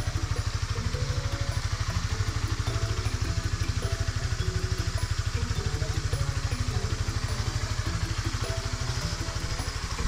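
Honda RS150 motorcycle's single-cylinder engine idling with a steady, even throb.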